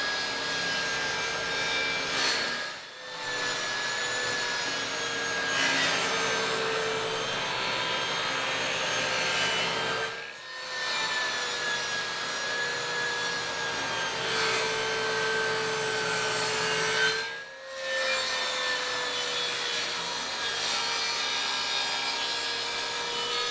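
TACKLIFE 10-inch, 15-amp jobsite table saw running with a steady motor whine while its blade rips through wooden boards, the whine dropping a little in pitch as the blade cuts. The sound briefly dips out three times.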